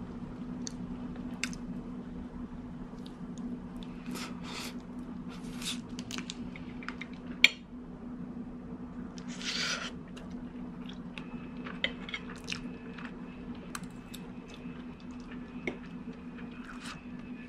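Close-up eating sounds: chewing and biting food, with a metal fork clicking against ceramic plates, one sharp click a little past seven seconds the loudest. A steady low hum runs underneath.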